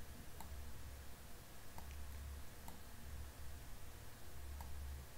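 A few faint computer-mouse clicks, about a second or more apart, over a low hum that comes and goes and quiet room tone.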